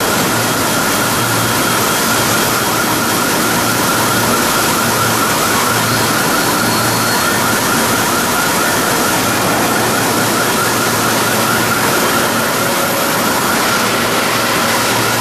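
Trinkle HOLA series 6 CNC drilling machine drilling through steel plate: a steady, loud cutting noise with a wavering high whine running through it, over a low machine hum.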